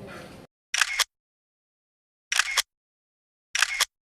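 Three camera shutter clicks, about a second and a half apart, each a quick double click like an SLR's shutter opening and closing, set against dead silence as an edited-in sound effect.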